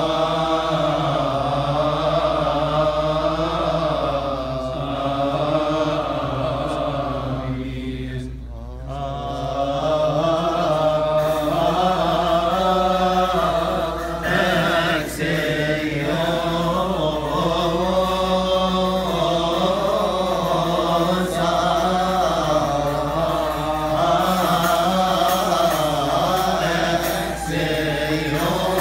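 Coptic Orthodox liturgical chant: unaccompanied voices singing a slow, wavering, melismatic hymn without a break, except for a short pause about eight seconds in.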